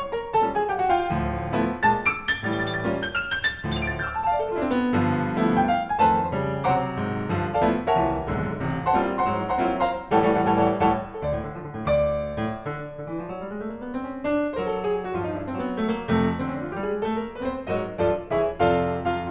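Solo piano music playing flowing runs of notes that rise and fall.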